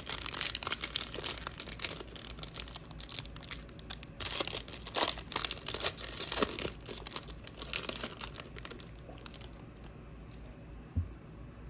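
Foil wrapper of a Panini Select basketball card pack crinkling and tearing as it is ripped open by hand, in irregular crackling bursts that die down after about nine seconds. A single short knock comes near the end.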